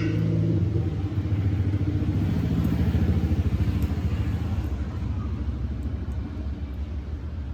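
A motor vehicle engine's low rumble, growing louder to about three seconds in and then fading.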